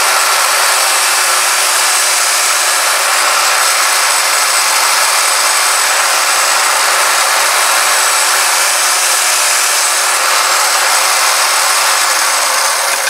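Small benchtop Craftsman drill press running, a loud steady motor whine and hum as its bit drills bolt holes through a plastic engine mount into the wooden block beneath. Near the end it is switched off and the motor's pitch falls as it winds down.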